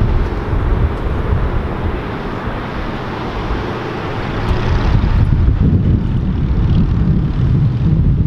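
Wind buffeting the camera microphone, a rough low rumble with a rushing noise over it that eases a little after about five seconds.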